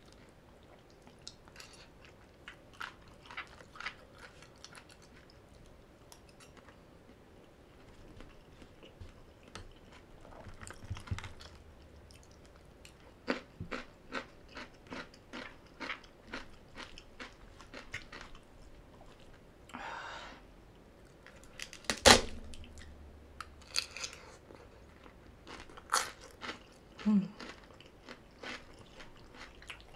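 Close-miked chewing of crunchy shredded green papaya salad (som tam): irregular crunches and chews, with one sharper, louder crunch about two-thirds of the way through.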